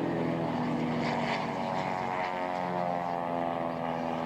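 Cessna Ag Truck crop-dusting plane: its piston engine and propeller drone steadily, the pitch dropping slightly as it passes.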